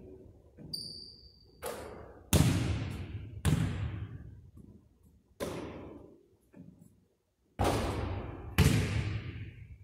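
A basketball striking the hardwood court and the hoop about six times, each hit ringing out in the echoing gym, the loudest a couple of seconds in and near the end. A brief high squeak about a second in.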